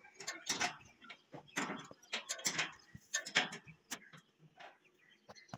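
A string of irregular sharp knocks and clicks, a few a second, some louder than others.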